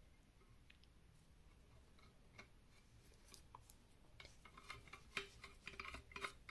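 Faint metallic clicks and scraping of brass pipe fittings being handled and screwed together by hand. A few scattered clicks at first, then a quicker run of clicks from about four seconds in.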